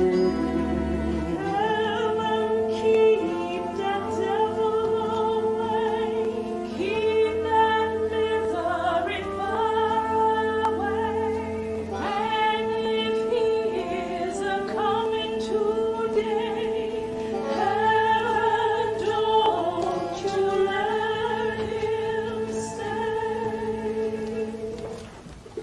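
Music from a stage musical: singing voices with accompaniment, holding long wavering notes. The music drops away briefly near the end.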